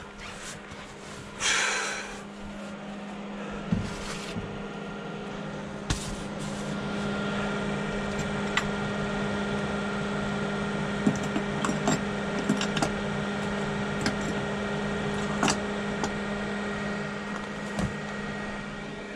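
A steady low machine hum inside a camper, with scattered knocks and clatter of gear being handled against wooden cabinetry and a brief rustle about two seconds in.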